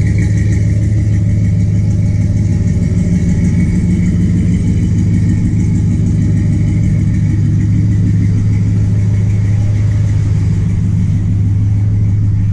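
LS-swapped Chevrolet pickup's Vortec V8 idling steadily through a makeshift exhaust of stock manifolds, an off-road Y-pipe and a muffler. It is not quiet by any means, but tolerable.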